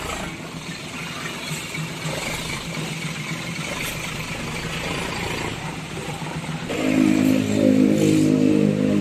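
Street traffic with vehicle engines running. About seven seconds in, a tour bus's basuri horn starts, loud, playing a run of held tones that step in pitch.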